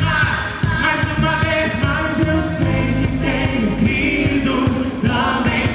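Live band playing a worship song with singing over it, a steady beat from drums and bass.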